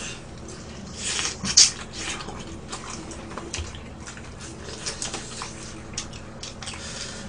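Chewing and lip-smacking on fried chicken, with scattered wet mouth clicks and one louder sharp noise about a second and a half in.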